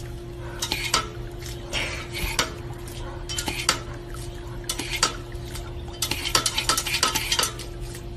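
Kitchenware clinking and scraping in irregular strokes, denser a few seconds before the end, over a steady low hum.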